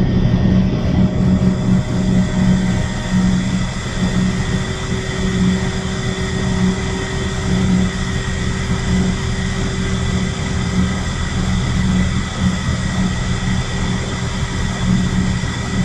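Shinko steam turbine and its generator running loudly and steadily, a deep drone topped by several high, steady whining tones. The turbine is in the last part of its run-up to its rated 1800 RPM, spinning the generator with no load and no excitation.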